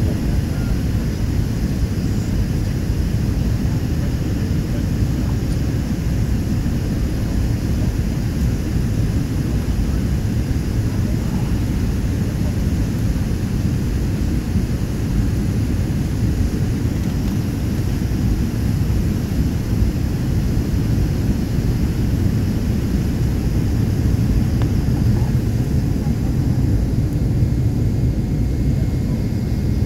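Jet airliner cabin noise: a steady low rumble of engines and rushing air, heard from inside the passenger cabin as the plane comes in to land.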